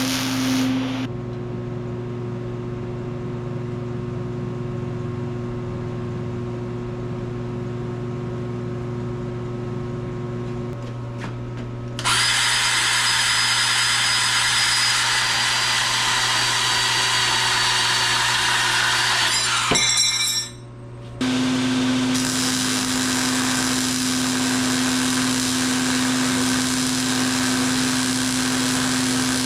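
Electric power tools running on steel angle-iron trim. The sound is continuous machine noise that changes abruptly about a second in, again about twelve seconds in, and again about twenty-one seconds in. The loudest and highest-pitched stretch is in the middle, with a brief drop just before its end.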